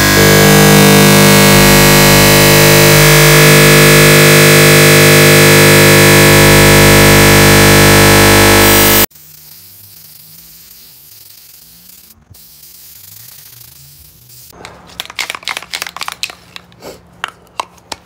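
Corded circular saw motor running loud and steady at full speed, stopping abruptly about nine seconds in. Near the end come a run of light knocks and clatter from handling.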